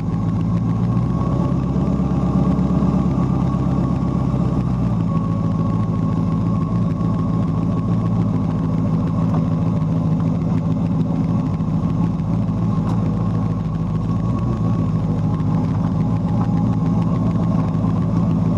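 Sleeper truck's engine running steadily, heard through a camera mounted on the truck. The low rumble is fuller from about one to five seconds in, then evens out.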